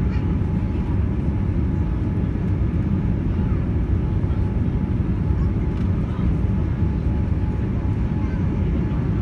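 Steady low roar of cabin noise inside a Boeing 787-9 airliner coming in to land, from its engines and the air rushing past the fuselage, with a faint steady hum above it.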